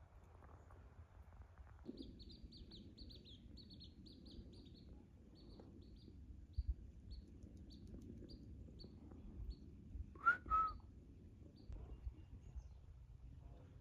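A small bird chirping: a run of short, high chirps, about two a second, then two louder, lower calls in quick succession about ten seconds in, over a faint low rumble of wind.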